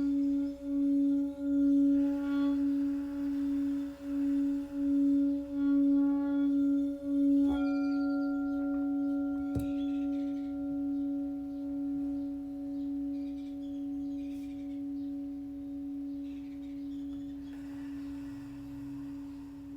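Singing bowl ringing with a steady low tone that swells and fades in quick pulses. It is struck again about seven and a half seconds in and left to ring, slowly fading.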